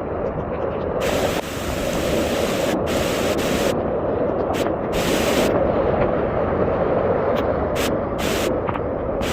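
Steady rushing of water from flooding and heavy rain, with a high hiss that cuts in and out several times.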